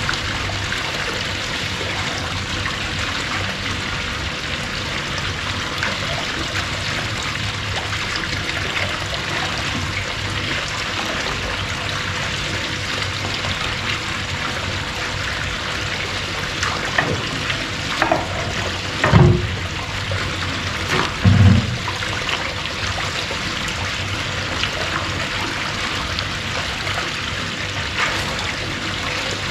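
Water from a small pond spout splashing steadily into a koi pond, with a faint steady hum underneath. Two dull knocks come about two-thirds of the way through.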